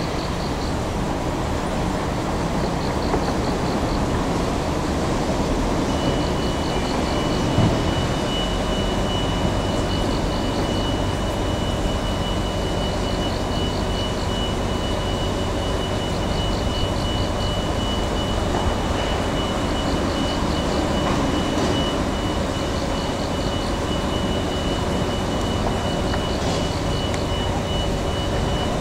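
Heavy demolition machine's diesel engine running steadily while it works on a scrapped train car. A faint high chirping repeats about every two seconds, and a thin steady high whine comes in about six seconds in. There is one dull thump.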